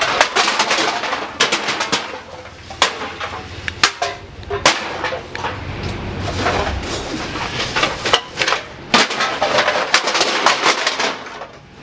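Empty aluminum drink cans clattering as they are poured into a scrap-yard hopper: a steady jumble of many sharp metallic clicks and knocks.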